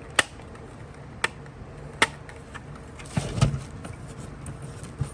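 Sharp plastic clicks and handling noise as the cover of a NuTone S-235 smoke alarm is worked off: three single clicks in the first two seconds, a louder burst of knocking and scraping a little past three seconds, and one faint click near the end.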